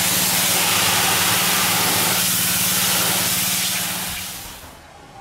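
Pressure washer running: a steady low motor hum under the hiss of the high-pressure spray striking the pool's side wall, fading out about four seconds in.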